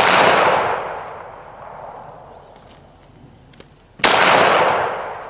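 Two shots from a Springfield Armory mil-spec 1911 pistol in .45 ACP, one right at the start and another about four seconds later. Each is followed by a long echo that fades over a second or so.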